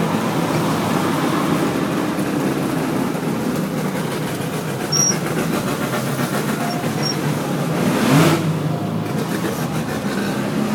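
Mazda RX-3's peripheral-port 13B twin-rotor engine droning steadily from inside the cabin while cruising, with tyre noise on a wet road. A short rising sweep about eight seconds in.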